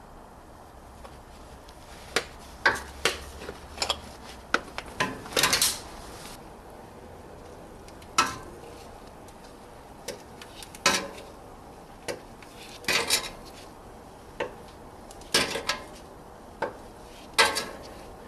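Oil filter wrench clinking and clanking against the metal oil filter in sharp, irregular strikes, with a longer scrape about five seconds in, as the filter is worked loose.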